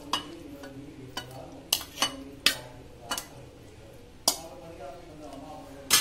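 A steel spoon clinking and scraping against a stainless steel bowl as raw chicken pieces are spooned into another bowl. About eight sharp clinks come at irregular intervals.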